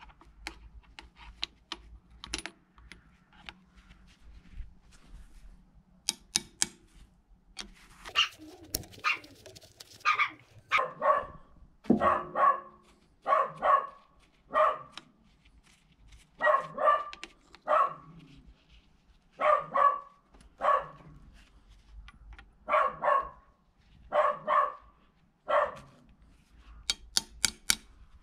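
A dog barking repeatedly, the barks often coming in pairs, starting about ten seconds in. Before that, scattered light clicks and taps.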